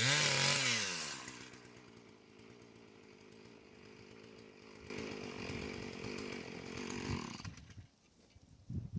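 Two-stroke Husqvarna chainsaw revving up and dropping back to idle in the first second, idling steadily, then running at higher speed again about five seconds in before the engine is shut off about seven and a half seconds in.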